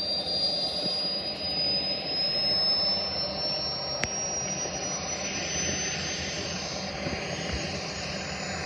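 Kingtech K-260 model jet turbine running: a steady rushing noise with a thin high whine that rises slowly in pitch.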